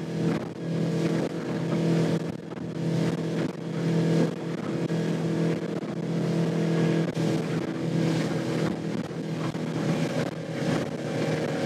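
21-foot pilothouse boat's engine running steadily at cruising speed, heard from inside the cabin: a steady, even hum over the rush of the hull through the water.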